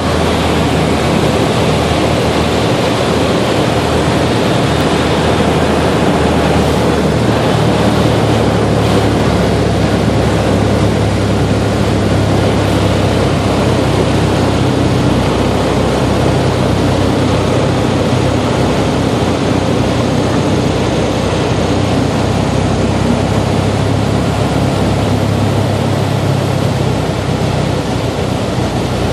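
Citabria light aircraft's piston engine and propeller heard from inside the cockpit, a steady drone mixed with wind noise through descent and touchdown. It eases slightly near the end as the plane rolls out on the runway.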